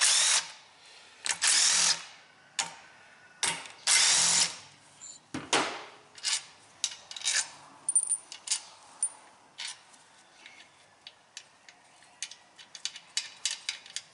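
Cordless DeWalt impact driver backing out 3/8-inch sump bolts in about five short bursts over the first six seconds. After that come many light, quick metal clicks as the loosened bolts are gathered by hand.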